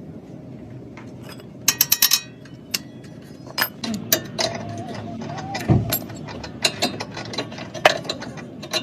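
Metal tools clicking and clanking during car repair work, with a quick run of about five clicks about two seconds in, then irregular single clicks and knocks.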